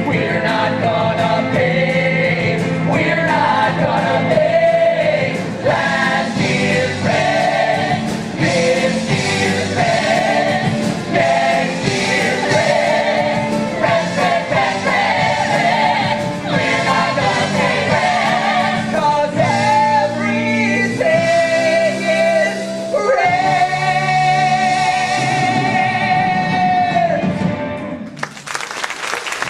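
Rock-musical cast singing together over a live band, ending on a long held chord, then audience applause breaking out in the last second or two.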